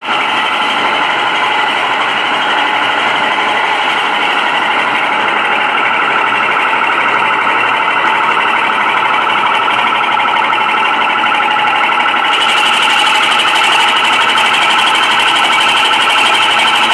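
Hammelmann high-pressure water pump running with a loud, fast, even rattling pulse, the abnormal noise reported when the high-pressure gun is operated. About twelve seconds in, a hiss joins in and carries on.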